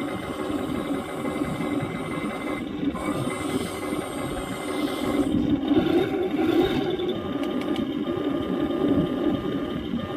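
MATO 1/16 all-metal Tiger I RC tank running: a steady mechanical clatter with a thin whine from its electric drive motors, the whine stopping and picking up again a few times.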